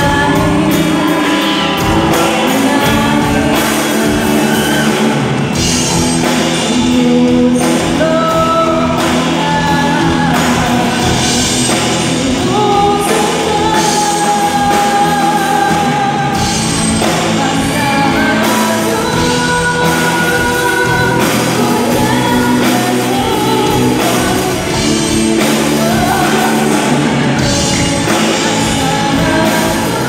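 Live rock band playing through a stage PA: a woman singing lead over electric guitars, bass guitar and a drum kit.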